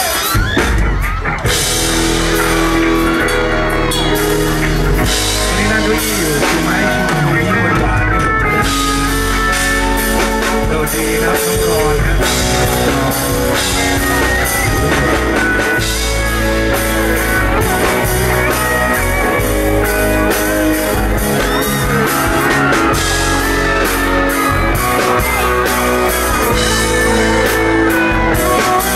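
Live rock band playing a song's instrumental intro over a PA: drum kit, guitar and keyboard, steady and loud, before the vocal comes in.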